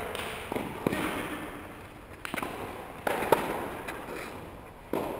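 Tennis balls being struck by rackets and bouncing during a doubles rally: a series of sharp pops, roughly one a second.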